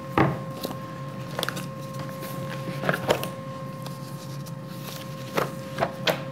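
A steady mid-pitched electrical whine with a fainter overtone, under a scatter of about seven light clicks and taps.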